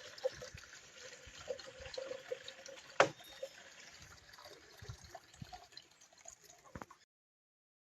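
Liquid being poured through a small funnel into a container, a steady trickling pour, with one sharp knock about three seconds in; the sound cuts off abruptly near the end.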